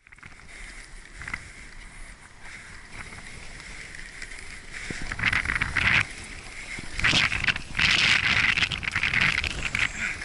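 Strong wind buffeting the microphone in gusts, light at first and growing loud and rough from about five seconds in.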